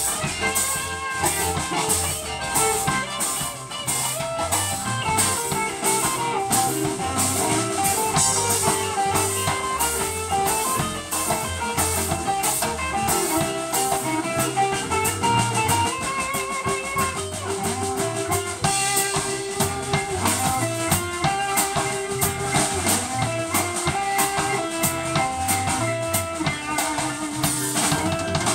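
Live blues band playing an instrumental passage: electric guitars playing melodic lines over a drum kit, with a steady cymbal beat.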